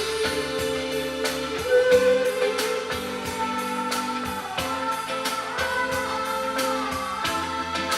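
Background music with a steady beat and a held melody line over it.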